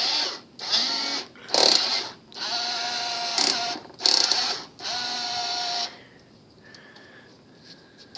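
Small electric gear motors of a homemade syringe-hydraulic model backhoe whirring in six short runs of half a second to a second and a half each, starting and stopping, then falling quiet about six seconds in.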